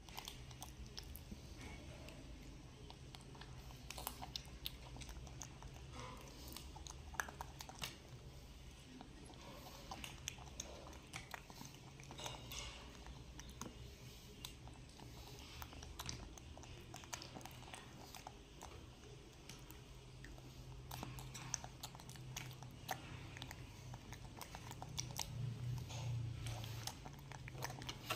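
Wet smacking and small clicks of a baby monkey eating yogurt off a spoon, spread irregularly over the whole stretch, above a steady low hum.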